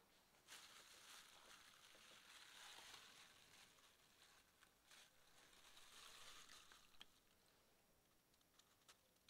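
Faint rustling and crinkling of a plastic food bag as a marinated whole chicken is pulled out of it, dying away about seven seconds in, followed by a few faint clicks.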